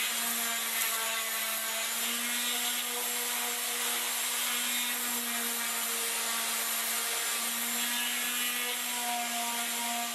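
Electric palm sander running steadily on pine boards: a steady motor hum with the hiss of the sanding pad on the wood.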